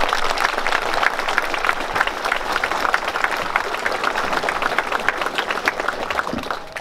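Audience applauding: a dense patter of many people's hand claps that dies away near the end.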